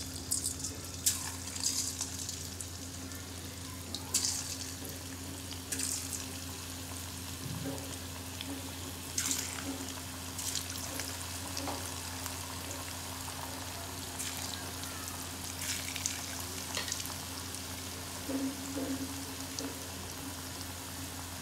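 Small lumps of mushroom pakoda batter deep-frying in hot oil in a steel kadai: a steady sizzle broken by irregular crackles and pops as more batter is dropped in.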